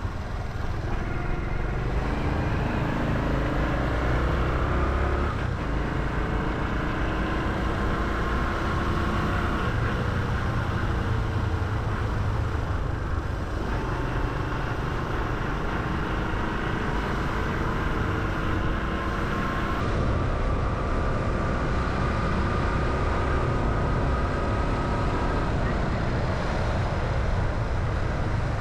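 Honda Hunter Cub's small single-cylinder engine running while ridden, its pitch rising and falling gently with speed, over a steady low rumble of road and wind noise.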